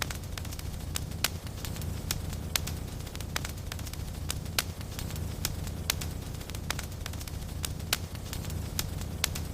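Fire in a fireplace crackling, with frequent irregular sharp pops and snaps over a steady low rumble.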